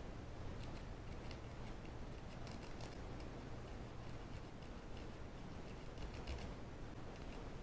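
A lock-pick rake working in and out of the keyway of a small 4-pin ABUS padlock, giving a rapid, irregular run of faint metallic clicks and scrapes as it drags over the pin tumblers. The lock has not yet opened.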